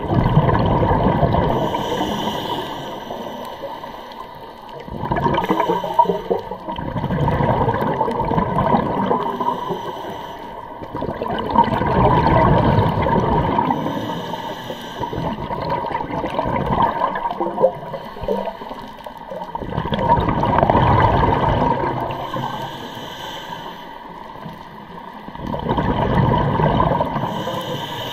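Scuba diver breathing through a regulator: slow breaths every six to eight seconds, each a hiss from the regulator and a rush of exhaled bubbles.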